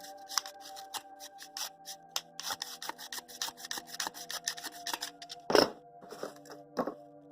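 Cardboard being cut by hand: a quick run of short cutting and rasping strokes, with a heavier thud about five and a half seconds in and another a second later. Soft background music with held notes underneath.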